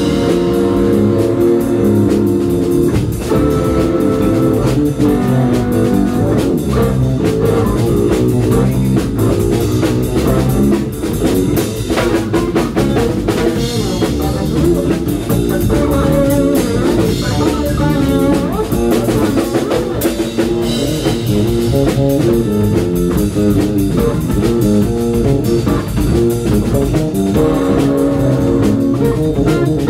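Live funk-fusion band playing: a headless Steinberger electric guitar with electric bass and drum kit, a steady groove with busy melodic lines.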